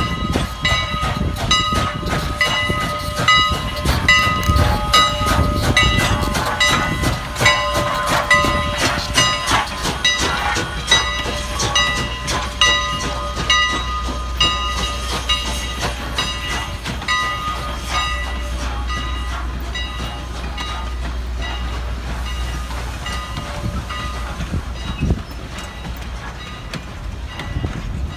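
A train behind the steam locomotive ex-CN 89 rolls past, its wheels clicking steadily over the rail joints with a few ringing tones over the top. The clicks thin out toward the end as the train draws away.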